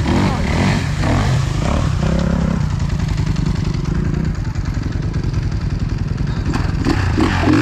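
Enduro dirt bike engine running steadily at a low, even speed.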